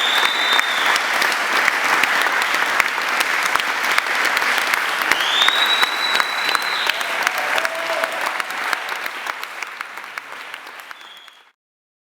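Audience applauding, with a few short whistles or cheers; the clapping fades and cuts off about three-quarters of the way through, leaving silence.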